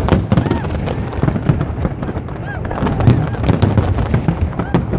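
Fireworks going off in quick succession: many sharp bangs over a low rumble, thickest about three to four seconds in, with crowd voices under them.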